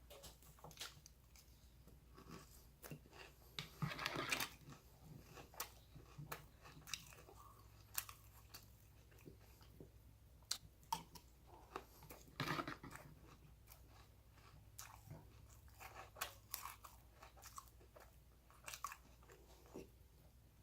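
Close-up chewing of crunchy Cinnamon Toast Crunch cereal, with many short crunches and clicks and louder clusters of crunching about 4 and 12 seconds in.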